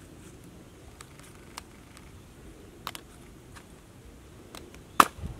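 Eggs being handled and set into a wicker basket: a few light clicks and taps, then one sharp, loud click near the end.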